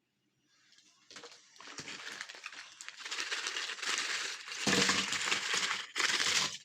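Oreo cookies being crushed in a meat grinder: dense crunching and crackling that builds from faint to loud over the first few seconds, then stops abruptly.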